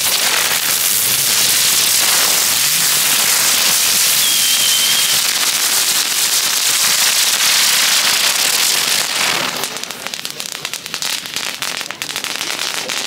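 A bundle of small F1 youth ground fireworks lit all at once, burning with a loud, dense hissing rush of sparks for about nine seconds, with a brief whistle near the middle. The hiss then dies down into rapid crackling.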